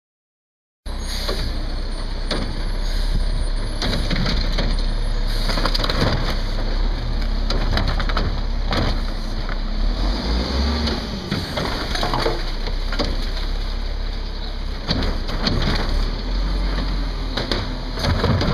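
Recycling truck's diesel engine running while its hydraulic Curotto Can II arm grips two 64-gallon plastic carts at once, lifts and dumps them into the can, and sets them back down. Repeated knocks and bangs of the carts and arm sound over the steady engine, starting after about a second of silence.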